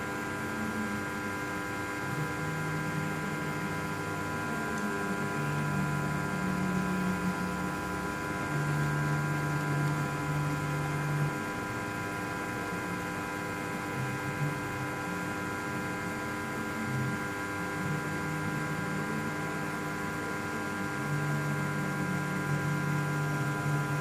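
Steady electrical hum with several constant high tones, and a lower hum that swells and fades in stretches of a few seconds.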